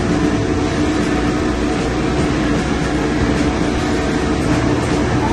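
Steady, loud drone of chiller-plant machinery, with a constant hum under it.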